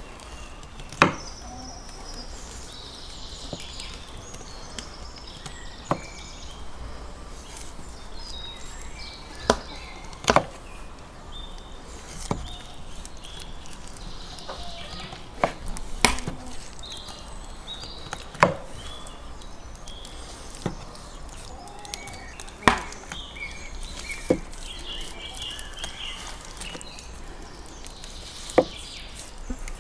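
A kitchen knife cutting through a whole salmon on a wooden cutting board, with about a dozen sharp chopping knocks of the blade on the board, coming at uneven intervals one to four seconds apart.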